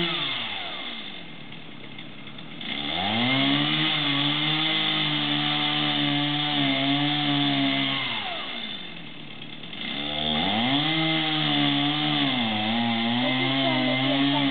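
Gas chainsaw running at high revs with its pitch wavering, dropping to idle twice (right at the start and about eight seconds in) and revving back up each time, about two seconds later.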